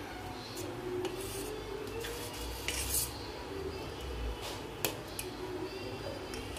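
Steel spoon scraping and clinking against a stainless-steel pot while stirring and scooping thick cooked oats, with a few sharp clinks of metal on metal, the sharpest nearly five seconds in.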